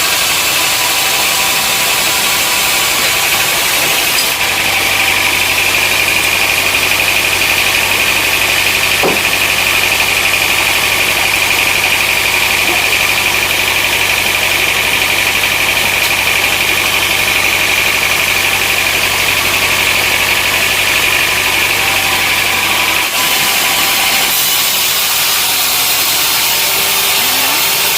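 Sawmill machinery running with a constant loud noise. A steady high whine and a low hum come in about four seconds in and drop away around twenty-three seconds in.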